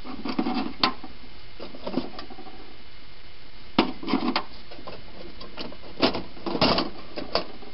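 Potentiometers, control knobs and other small radio parts clattering and clicking against each other in a box as they are rummaged through, in irregular bunches of clicks.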